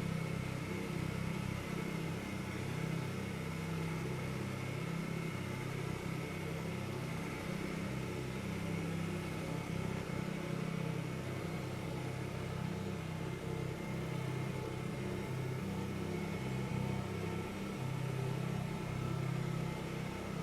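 Kubota BX compact tractor's three-cylinder diesel engine running steadily, with a thin steady high whine over it.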